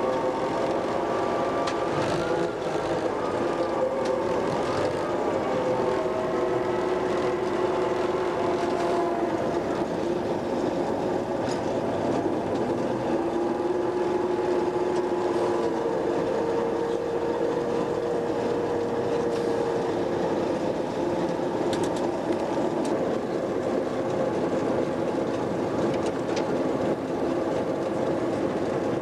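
Lxd2 narrow-gauge diesel locomotive running along the line, its engine note drifting slowly up and down, with a few sharp clicks from the track.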